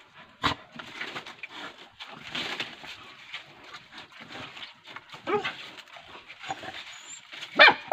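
Dogs scuffling on gravel and dry leaves as they worry a monitor lizard, with faint dog growls and whimpers. There is a sharp knock about half a second in and a louder cry near the end.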